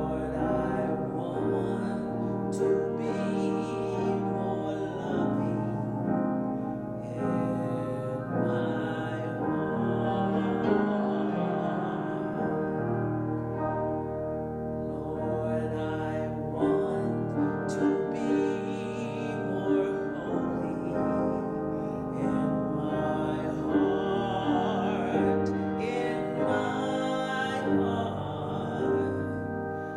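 Music: a singer with held notes over keyboard accompaniment.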